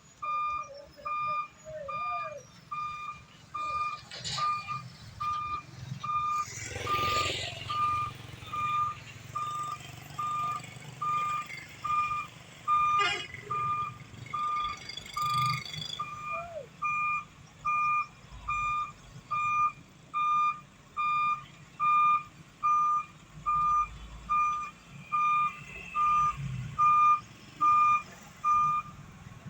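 A construction vehicle's reversing alarm beeping steadily, a little faster than once a second, over the low running of its engine, with a short hiss-like burst about seven seconds in.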